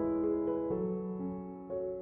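Background piano music: held chords that change every second or so.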